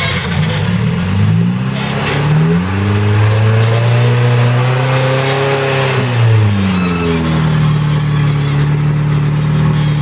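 Rock crawler buggy's engine revving up under load over about three seconds as it climbs a rock ledge, holding high for a couple of seconds, then dropping back to a steady lower speed.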